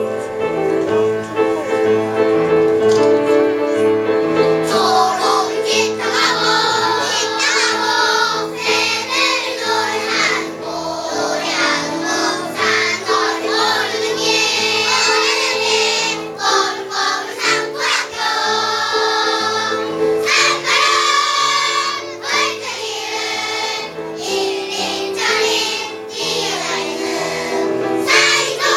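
Young children's choir singing a song together over instrumental accompaniment; the accompaniment plays alone for about the first five seconds before the children's voices come in.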